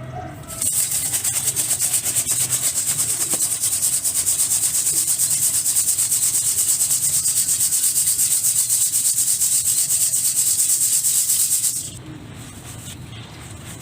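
Dry dirt or gym chalk rubbed or scraped in a fast, even rhythm of about eight strokes a second, a loud gritty hiss. It starts about half a second in and stops suddenly about two seconds before the end.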